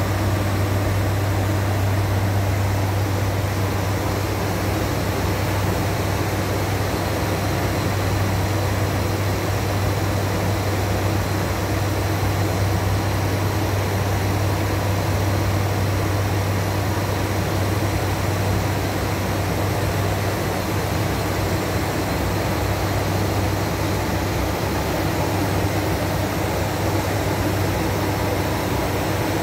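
Cockpit noise of an ATR 72-500 turboprop airliner in level cruise: its two Pratt & Whitney Canada PW127 engines and propellers give a steady low drone, with a constant hiss of airflow over it.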